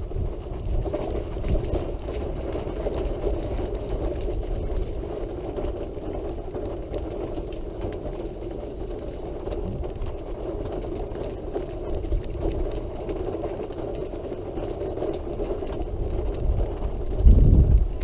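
Wheelchair drive motor running steadily as the chair travels along a hard path, with gusts of wind rumbling on the microphone.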